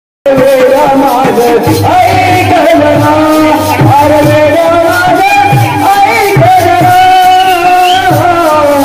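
Jakhadi folk song: men singing long-held, wavering notes, led by an amplified voice, over a barrel hand drum beating steadily. The sound cuts in a moment after the start.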